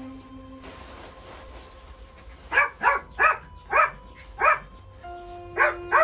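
Dog barking: a run of sharp, loud barks starting about two and a half seconds in, seven in all, over soft background music.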